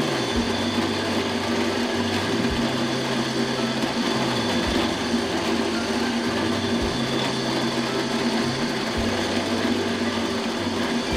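Floor drill press running with a steady motor hum, its bit boring into wood as the quill is fed down.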